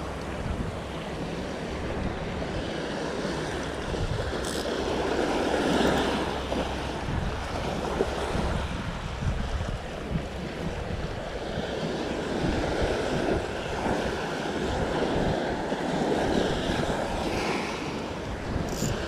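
Small waves washing up and draining back on a sandy beach, swelling and easing every few seconds, with wind buffeting the microphone.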